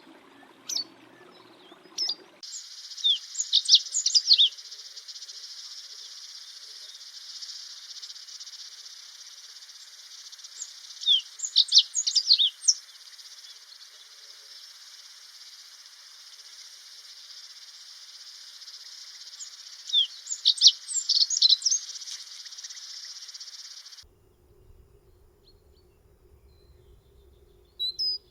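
A songbird calling in three short clusters of quick, sharp chirps about eight seconds apart, over a steady high insect drone of crickets or cicadas. The insect drone cuts off suddenly near the end, leaving a faint low hum.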